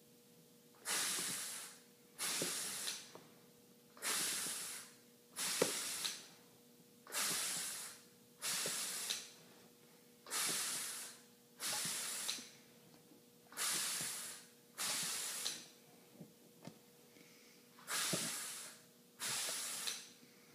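Hiss of an HPRS hydraulic rivet squeezer as it cycles, six pairs of short hisses about a second apart, one pair for each rivet squeezed. Faint clicks fall between the pairs.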